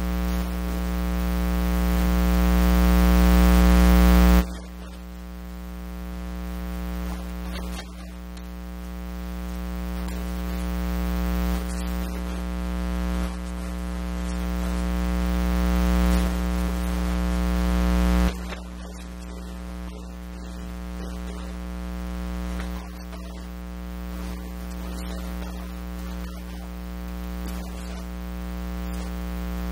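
Electrical mains hum, a buzz of several steady tones with hiss, that swells slowly and drops back suddenly again and again.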